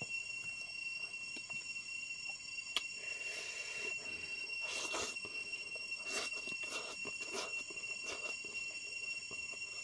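Close-up mouth sounds of a man eating rice and spicy noodles with his hand: wet chewing and noodle slurps with a few sharp clicks, the loudest slurp about five seconds in. A steady high-pitched ringing runs underneath.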